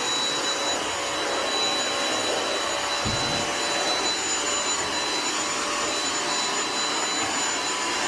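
Dyson V6 cordless stick vacuum running steadily while vacuuming a hard floor: a constant rush of air with a thin high motor whine on top.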